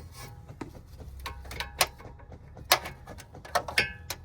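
Metal tools clinking as an inner tie rod removal tool and its adapter are fitted over a car's inner tie rod: a series of sharp taps and knocks, some ringing briefly, the loudest about two and a half seconds in.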